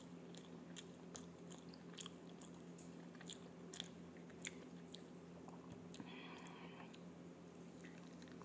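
Quiet chewing and small sharp mouth clicks of someone eating fried tempe, chicken and rice by hand, picked up close by a clip-on microphone. A faint steady hum runs underneath.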